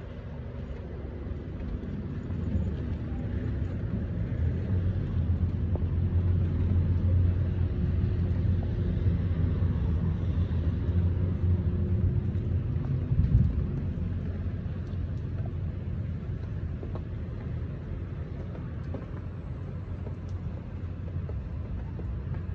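Low outdoor street rumble that builds over the first dozen seconds, peaks briefly, then settles to a steadier, quieter level.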